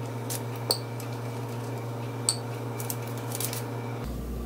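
A metal spoon clinking against a glass jar of pasta sauce while scooping and spreading: two sharp, ringing clinks, about a second in and again near the middle, with a few lighter taps and scrapes.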